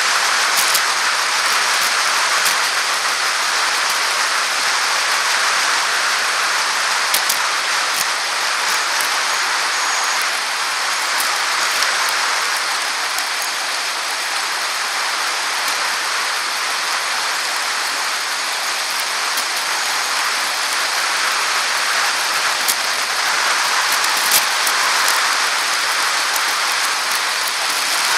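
Steady rushing noise of a bicycle ride heard from a camera on the bike: wind and tyre noise on a paved path, with scattered sharp clicks and ticks.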